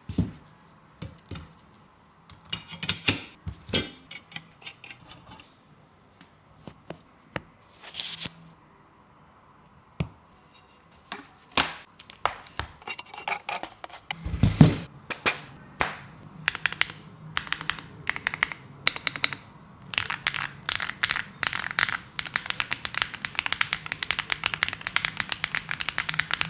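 Handling of a mechanical keyboard and its packaging: scattered clicks, scrapes and taps, with one heavier thump about halfway. In the last several seconds comes fast, steady typing on the mechanical keyboard's keys.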